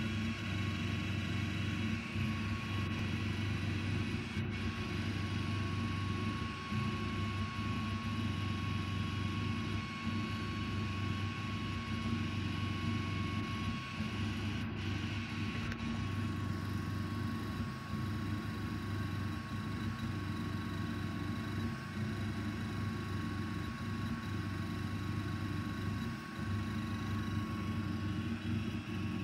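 5.5 W diode laser engraver running through an engraving job: a steady hum with a thin, steady high whine above it.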